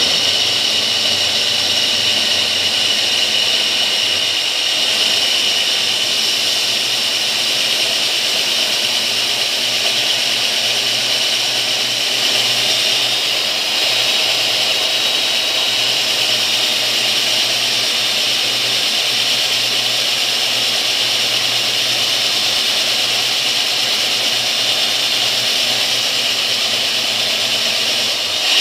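Electric diamond core drill on a floor stand running steadily with a high whine as its water-fed core bit cuts down into a concrete floor.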